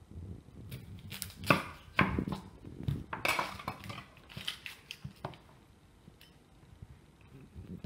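A knife crunching through a raw onion, with sharp knocks and clatter of metal tools on an end-grain wooden board. The knocks come in the first few seconds, with the crunch about three seconds in, and it goes quiet after about five seconds.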